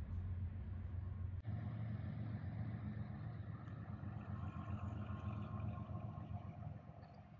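Low steady rumble of outdoor background noise, like distant engine or traffic hum, with no voices. It changes abruptly about one and a half seconds in and fades a little near the end.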